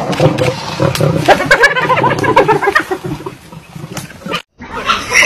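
A leopard and a lioness growling at each other over a kill, in rough, loud bursts. The sound cuts off abruptly about four seconds in.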